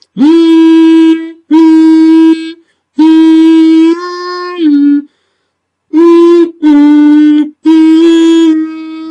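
Beatbox siren: a falsetto hum voiced through nose and mouth at once, with the upper lip laid over the lower, giving a buzzy, reedy tone. It comes as about six short held notes with brief gaps between them, mostly steady in pitch. The first note scoops up into place and a few notes step slightly up or down.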